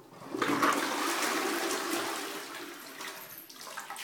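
Toilet flushing: a sudden rush of water into the bowl about a third of a second in, loudest at first and easing off toward the end.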